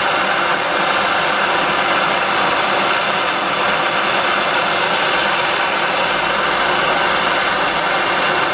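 Handheld gas torch on a blue canister burning steadily, its flame a loud, even hiss.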